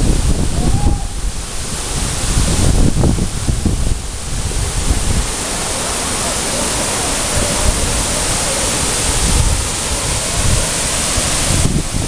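Waterfall and fast-flowing stream: a loud, steady rush of falling and churning water. Low gusts of wind hit the microphone in the first few seconds.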